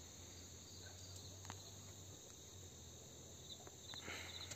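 Near silence: a faint steady low hum, with a few soft high-pitched insect chirps near the end.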